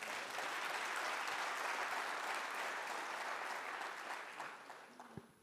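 Audience applauding, steady at first and then fading out near the end.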